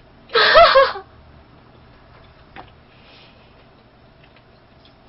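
A woman's brief, high-pitched, wavering vocal sound without words, lasting under a second about half a second in. It is followed by a faint click and soft mouth noises.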